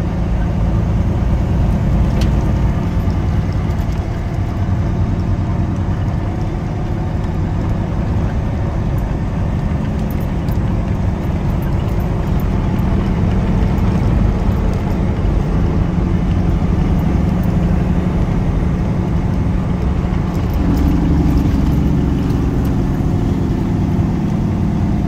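Semi truck's diesel engine running under way, heard from inside the cab as a steady low drone with road noise. The engine note shifts about 20 seconds in.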